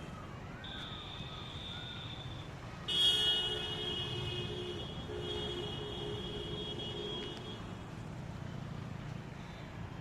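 A vehicle horn sounds one long honk of about four and a half seconds. It starts suddenly about three seconds in and holds two close tones together, over a low steady hum of traffic.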